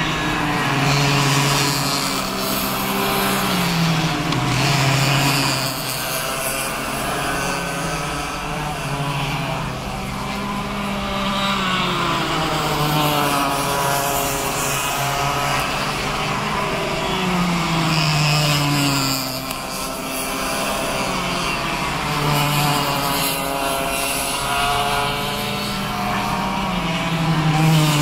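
Cadet racing karts' small two-stroke engines at high revs, their pitch falling and rising again and again as the karts go through the corners.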